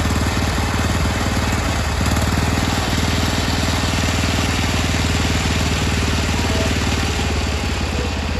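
A small engine running steadily with an even low drone and fine regular firing pulses, at a constant speed.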